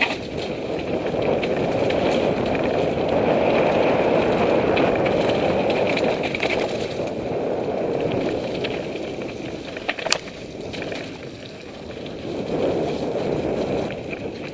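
Mountain bike descending a rocky gravel singletrack, heard from a helmet camera: tyres rolling and crunching over loose stones with the bike rattling, and a sharp knock about ten seconds in.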